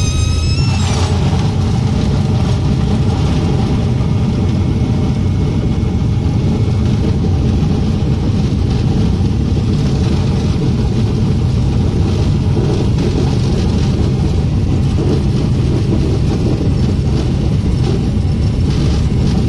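Cessna 150's four-cylinder Continental O-200 engine running at low power inside the cockpit, with the propeller turning slowly and the aircraft rolling across a grass runway after landing; a steady loud drone. A high rising whistle fades out about a second in.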